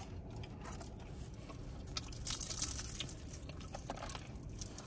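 Crisp fried samosa pastry crunching as it is broken apart by hand and eaten, with soft chewing; the crackling is loudest about two seconds in.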